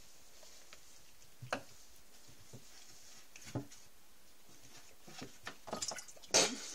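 Kittens' paws thumping and scrabbling on a wooden cat cube and a carpeted scratching post: a few single soft knocks, then a quick cluster of them with the loudest thump near the end.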